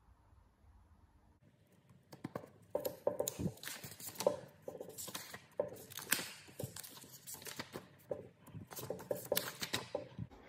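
Irregular rustling and clicking noises, starting about a second and a half in.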